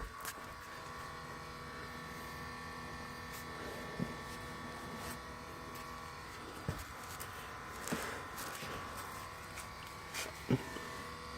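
Steady electric hum, with several fixed tones, from a switched-off 2016 Subaru WRX STI's fuel pump running at the gas tank: a normal pressure test after shutdown. A few faint short knocks sound over it.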